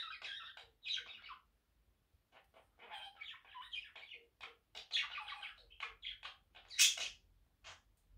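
Budgerigars chattering in short runs of quick chirps and warbles, with one sharp, loud call about seven seconds in.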